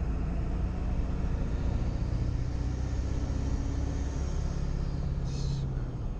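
Ford 7.3 Powerstroke turbo-diesel V8 pulling the truck along the road on a mild 25 hp tow tune, with a steady low rumble whose pitch shifts about two seconds in and again about four seconds in.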